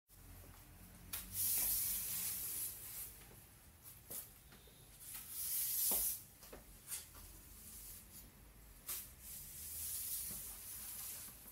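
Broom bristles swishing across a wooden floor in three long sweeping strokes, with a few short knocks between them.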